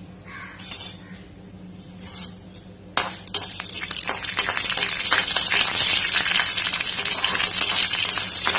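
Black peppercorns frying in hot sesame oil: a few light clinks, then about three seconds in a sharp clink and the oil starts sizzling and crackling, building to a steady, dense sizzle.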